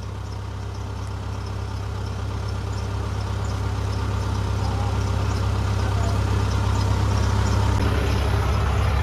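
An engine idling steadily with a low, even hum, growing slowly louder.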